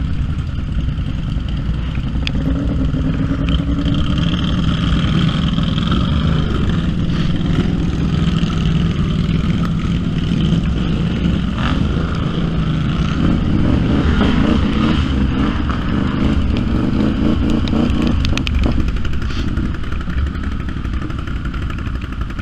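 Side-by-side off-road vehicle engine running continuously under changing throttle, its revs rising and easing off, with occasional knocks and clatter.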